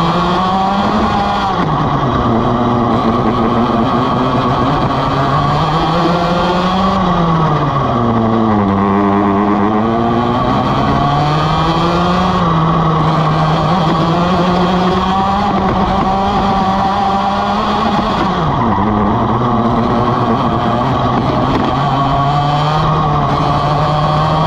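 Vortex ROK GP 125cc two-stroke kart engine at racing speed. Its note climbs on the straights and drops when the driver lifts for the corners, with the deepest drop about nine seconds in and another near nineteen seconds.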